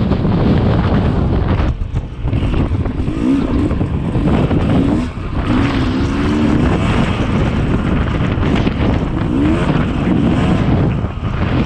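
Yamaha YZ250 two-stroke dirt bike engine revving up and down under hard riding, with heavy wind buffeting the microphone. The throttle drops off briefly about two seconds in, around five seconds, and again near the end.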